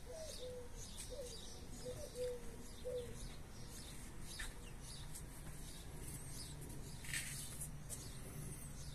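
A dove cooing, a run of repeated low notes in the first three seconds, with scattered high chirps of small birds throughout.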